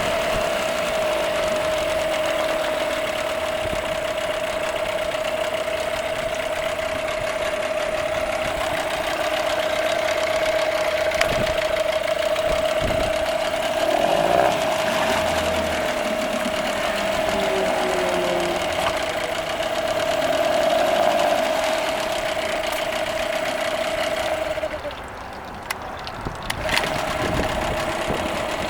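Nissan 8 hp outboard motor running at a steady speed, now running after a no-start problem. Near the end the engine sound drops away for about two seconds, then comes back.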